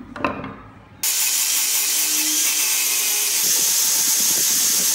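A single knock of wood near the start, then from about a second in an angle grinder fitted with a sanding drum runs steadily at high speed, sanding a wooden part, with a high motor whine over the hiss.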